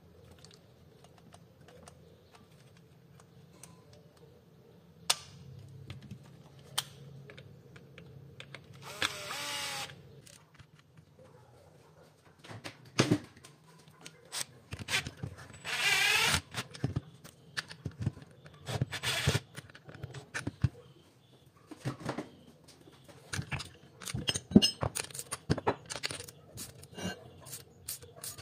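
Tools and metal parts being handled on a workbench: irregular clicks and knocks, getting busier in the second half. Two short, harsher scraping noises come about nine and sixteen seconds in.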